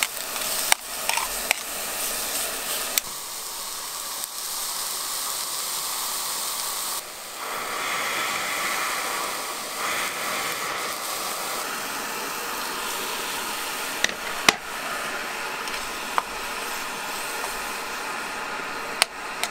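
Beef and tomatoes sizzling in a frying pan over a Fire Maple Fixed Star X2 gas stove, with the burner's steady hiss underneath. A metal spoon clicks against the pan a few times while the food is stirred.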